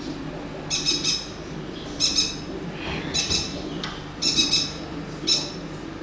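Small conure (yellow-sided green-cheeked conure) squawking: five short, harsh calls, about one a second.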